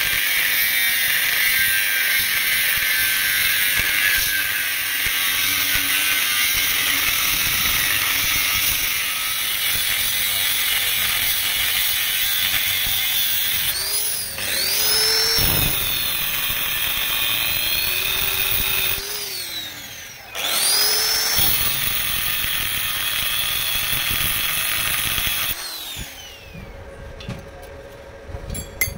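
Angle grinder with a thin cutting disc cutting a slot into a thick steel bar: a steady high whine over harsh grinding noise. Twice around the middle the motor's pitch drops away and climbs back up. The grinder stops near the end, leaving a few light metal clicks.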